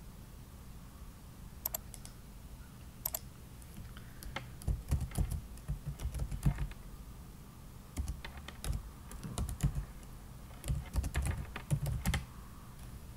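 Typing on a computer keyboard in three quick bursts of key strikes. It follows a couple of single sharp clicks in the first few seconds.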